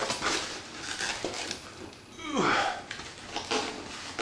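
Cardboard box scraping and rustling as it is handled, with a man's groan of effort falling in pitch a little past halfway through.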